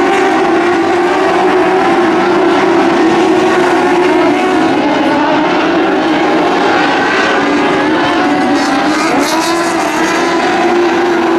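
Several dwarf race cars' engines running together on the dirt oval, a loud steady drone whose pitches waver up and down as the cars lap.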